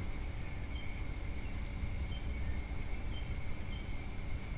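Quiet outdoor ambience: faint, brief bird chirps scattered every half second or so over a steady high thin tone and a low background rumble.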